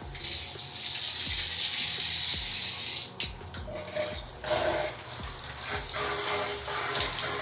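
Water rushing, then a click about three seconds in, after which a quieter steady spray runs from a 9-inch square stainless-steel Capstone rain shower head as it is tested.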